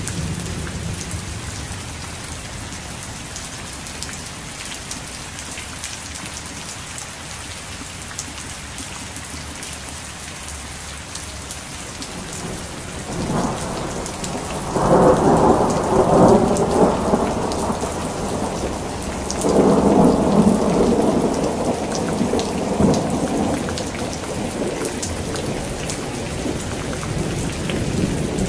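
Heavy rain falling steadily with thunder: two long rolls of thunder, the first starting about halfway through and the second following a second or two after it ends, each lasting several seconds and louder than the rain.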